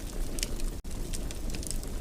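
Wood fire crackling in a fireplace: scattered sharp pops over a steady low rumble of flames, with a split-second break in the sound a little under halfway.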